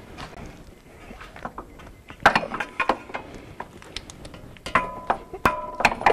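Scattered metal clinks and knocks, some with a short ring, from a front CV axle shaft and hand tools being worked against the suspension parts. The strongest come about two seconds in and again near the end.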